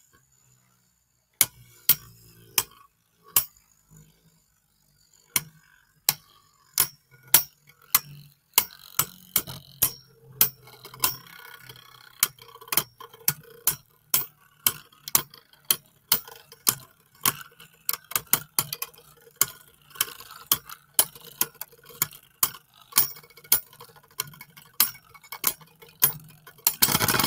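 Two Beyblade spinning tops, one 3D-printed and a Storm Spriggan, battling in a stadium. Sharp clacks as they collide come sparse at first, then one or two a second, over a faint steady hum from the spinning.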